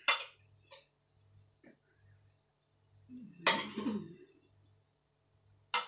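A person coughs once, a rough burst about three and a half seconds in, after a short sharp noise at the start and a few faint clicks of cutlery.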